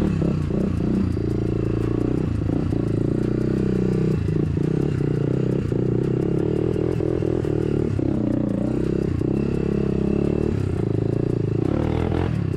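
Honda dirt bike engine running steadily at a fairly constant pitch while riding a rough trail, with the bike clattering and knocking over bumps.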